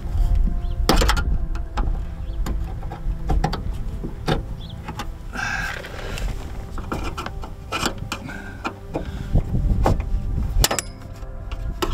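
Small screwdriver clicking and scraping against the metal retaining clip on a bonnet gas strut's end fitting as it is pried at, with a few sharp clicks spread through. Wind rumbles on the microphone throughout.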